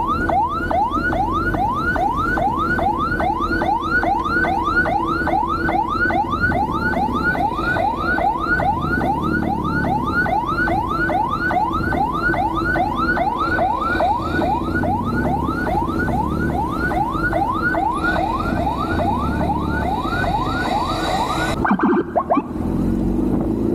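Police escort motorcycle's electronic siren on a fast yelp, over engine and wind noise. Each sweep rises quickly, about three a second, and the siren cuts off about 22 seconds in.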